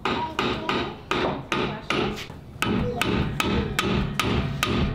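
Hammer blows on steel on the underside of a Toyota Tacoma pickup, a steady run of sharp strikes about two or three a second, knocking a part that "just needs spread a little bit" back into shape.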